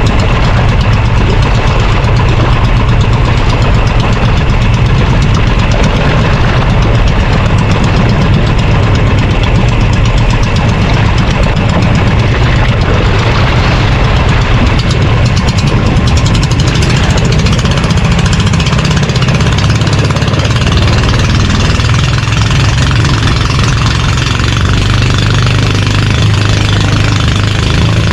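Fishing boat's engine running steadily at speed, loud and close, a constant low drone with a rushing noise above it.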